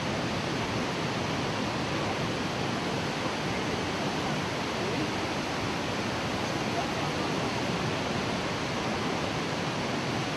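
Churning whitewater below a waterfall: a steady, even rush of water.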